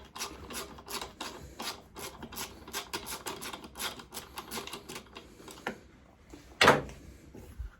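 Ratchet wrench clicking in quick, uneven runs as a tight fuel-tank bolt is undone on a pit bike, with a louder metal knock near the end.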